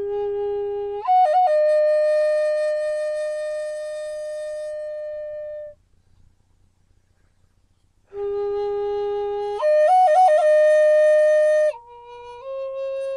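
Cedar flute in G-sharp minor played slowly: a long low note leaps up to a long held higher note with a few quick flutters at the leap. After a pause of about two seconds, the phrase is played again and then steps down to lower notes near the end.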